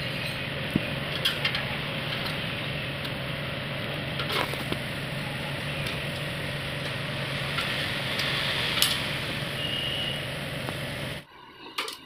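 A steady mechanical hum and hiss in the background, with a few sharp metallic clicks and taps as an ignition key switch and gauges are fitted into a sheet-steel panel. The hum cuts off abruptly near the end.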